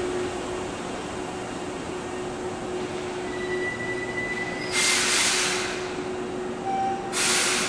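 Electric commuter train at a station platform: a steady hum, a thin high squeal for about a second and a half, then two loud bursts of compressed-air hiss about two seconds apart.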